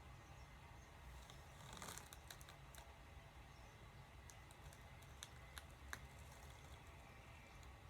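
Hunter Passport ceiling fan running on low speed: a faint steady low hum, with a scattering of light clicks and ticks about two seconds in and again a few seconds later.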